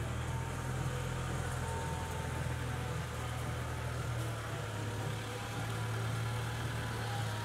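Honda del Sol's four-cylinder engine idling steadily as the car creeps forward at low speed.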